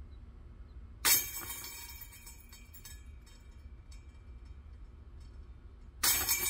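A plastic putter disc strikes the chains of an Axiom Pro disc golf basket twice, about five seconds apart. Each hit sets the chains clinking and ringing for about a second as the disc drops in for a made putt.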